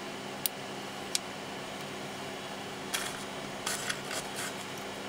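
Small electronic components being handled on a workbench: two sharp light clicks, then a short stretch of rustling and tapping about three to four and a half seconds in, over a steady low hum.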